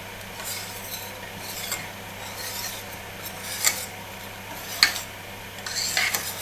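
Wire balloon whisk stirring whipped egg whites into cream cheese batter in a stainless steel bowl. Its wires scrape and tick against the metal bowl in short strokes, about half a dozen at uneven intervals.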